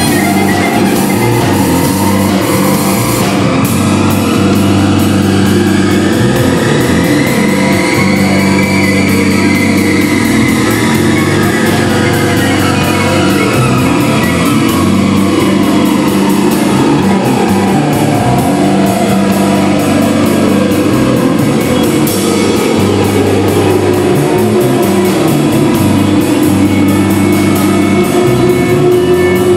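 Live experimental rock jam with drum kit, bass, electric guitar and electronic loops playing a dense, loud wall of sound. A slow sweeping tone rises to a peak about nine seconds in and then sinks gradually back down.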